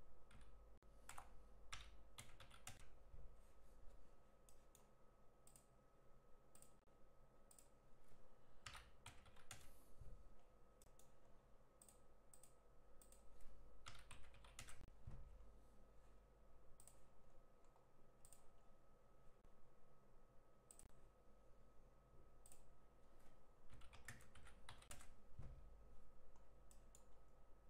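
Faint computer keyboard typing, several short bursts of key clicks as dimension values are entered, over a faint steady hum.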